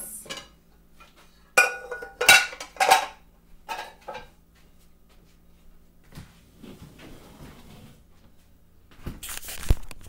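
Metal cooking pots and a pan clanking against each other and the dishwasher's wire rack as they are lifted out, a cluster of ringing knocks with the loudest about two seconds in. Near the end comes a burst of rustling handling noise.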